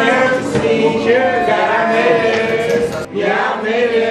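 A group of male voices chanting and singing together loudly in long held notes, with a short break about three seconds in.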